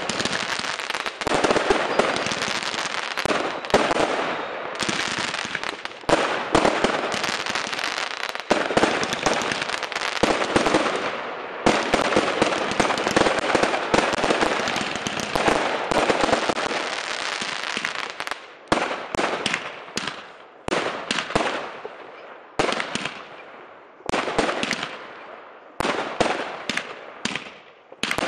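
Aerial fireworks going off: a dense, rapid run of overlapping bangs and crackle, which about two-thirds of the way through thins out into separate sharp reports a fraction of a second apart.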